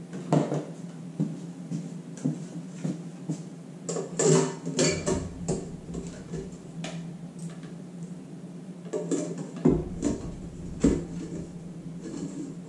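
Handling noises from a KitchenAid Artisan tilt-head stand mixer: irregular clicks and knocks of plastic and metal as a clear pouring shield is fitted onto the steel bowl and the tilt head is lowered, with dull thumps about five and ten seconds in. A low steady hum runs underneath.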